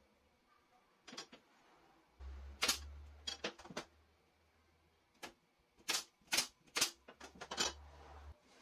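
Sharp wooden knocks and clicks as pine boards and a speed square are set down, butted together and shifted on a tabletop, about ten in an irregular run, the loudest a little under 3 seconds in and again around 6 to 7 seconds, some with a dull thud under them.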